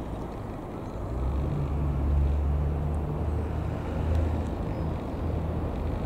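Single piston engine of a Nynja Skyranger microlight running with a steady low drone that grows louder about a second in.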